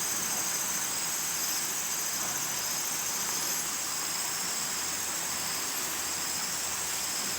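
Steady chorus of forest insects, a high, even buzzing, over a steady hiss.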